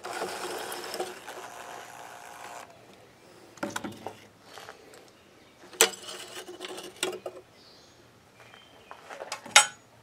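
Cordless drill running for about two and a half seconds as it backs screws out of a two-stroke leaf blower's muffler cover, then stopping. Scattered sharp metal clicks and clinks follow as pliers work the spark arrestor screen out of the exhaust.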